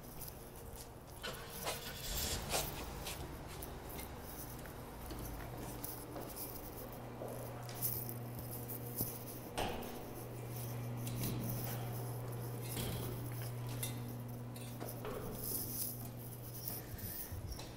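Footsteps and the handling rustle of someone walking while filming, with a few sharp knocks and clicks. Under them runs a steady low hum that stops near the end.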